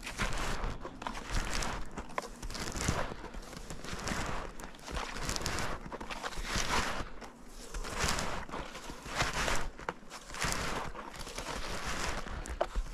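Snowshoes crunching and compressing fresh powder snow in a steady walking rhythm, about one and a half steps a second.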